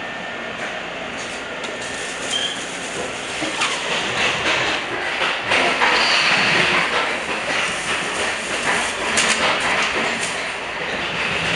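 Running noise inside a Bombardier MR-90 electric multiple-unit commuter car at speed: a steady rumble and hiss with the wheels clicking over rail joints. It grows louder about four seconds in and eases off near the end.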